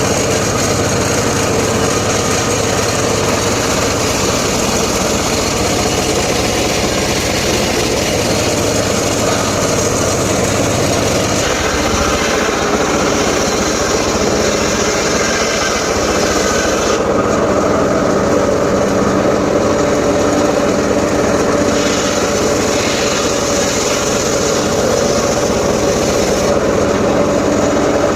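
Small engine-driven saw running steadily, its sound shifting several times, as when cutting into wood.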